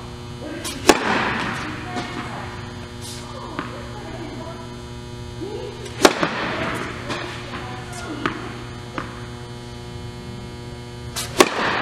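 Tennis ball cracking off a racket and bouncing on a hard court, echoing in a large indoor hall: loud cracks about a second in, about six seconds in and twice near the end, with lighter ticks between. A steady electrical hum runs underneath.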